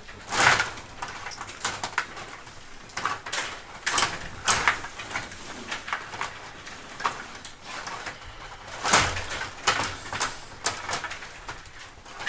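Stiga rod table hockey game in play: rods sliding and twisting in the board, with the plastic players and puck clacking in a quick, irregular run of clicks and knocks. The loudest hits come about half a second in and again around nine seconds.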